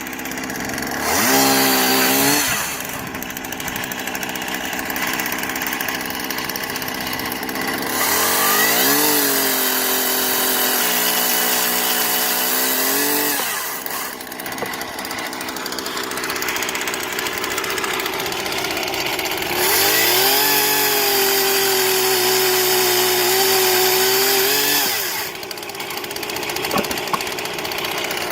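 An old Poulan two-stroke chainsaw idling on a homemade pivoting mount, revved up three times: a short blip about a second in, then two longer runs of about five seconds each. Each time the pitch rises, holds while the chain cuts through a small piece of firewood, then drops back to idle.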